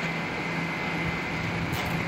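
Steady mechanical hum with a low drone, and a short hiss near the end.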